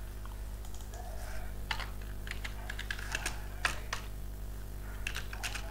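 Typing on a computer keyboard: irregular keystrokes in short runs, over a steady low hum.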